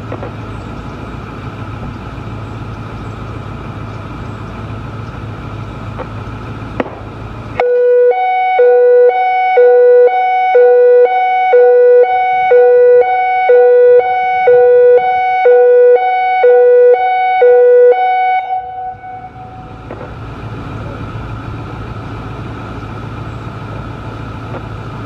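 Emergency warning system hi-lo tone: two pitches, low and high, alternating about once a second for roughly ten seconds, loud. Before and after it there is only a steady hiss and hum.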